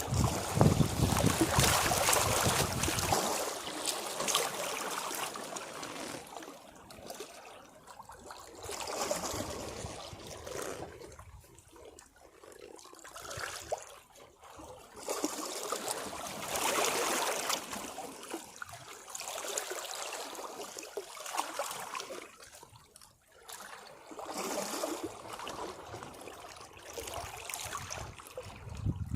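Sea waves washing against rocks, swelling and draining away in several surges, with water trickling off between them.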